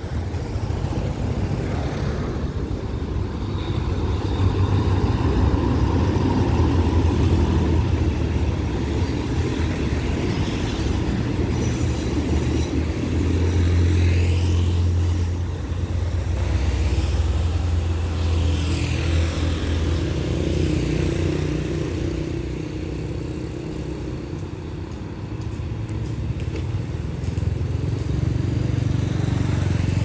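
Alsthom diesel-electric locomotive passing with a passenger train: a steady low engine drone that swells as it goes by, then the coaches rolling past on the rails.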